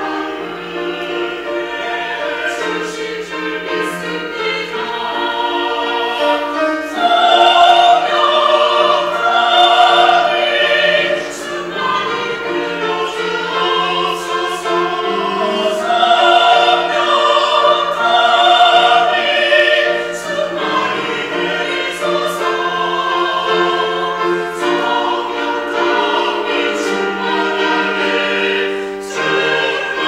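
Small church choir singing a sacred choral piece, swelling louder twice in the first two-thirds.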